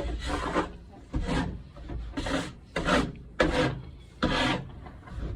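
Snow shovel scraping, about six strokes in a row.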